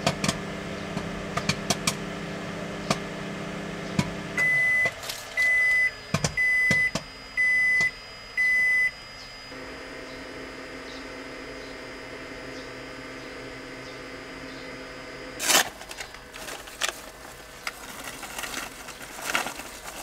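ZEPEAL microwave oven running with a steady hum that stops about four seconds in, followed by five short high beeps signalling that heating is done. Near the end come a loud rustle and crackling of a bag being handled.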